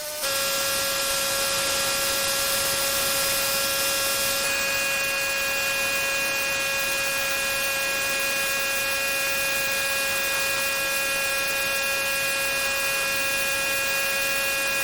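Pressure washer running steadily while washing a driveway: a constant machine whine made of several held tones over the hiss of spraying water. The tones shift slightly about four and a half seconds in.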